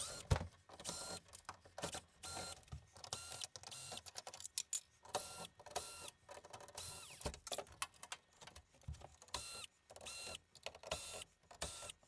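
Cordless drill-driver spinning in many short bursts of motor whine, each under a second with brief pauses between, backing Phillips screws out of a van's door-trim hinges.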